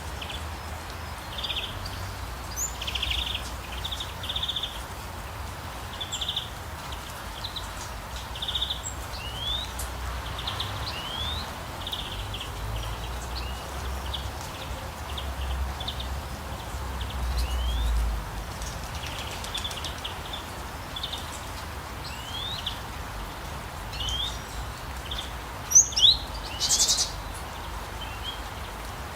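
Small birds singing and chirping in a forest, with many short, high calls and quick rising whistles repeated throughout; a couple of louder calls stand out near the end. A steady low rumble, like wind or distant noise, runs underneath.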